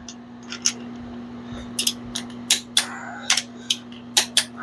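Sharp metallic clicks from a ratcheting torque wrench and socket, about a dozen in uneven pairs and singles, as the connecting-rod cap nuts of a small-block Chevy are run down and torqued to 45 ft-lb.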